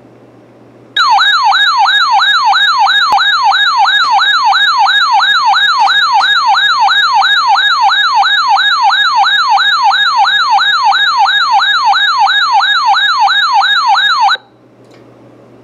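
Weather radio receiver's alert siren sounding for a severe thunderstorm warning: a loud warbling tone that sweeps up and down about two and a half times a second. It starts about a second in and cuts off suddenly about thirteen seconds later, leaving a faint radio hiss and hum.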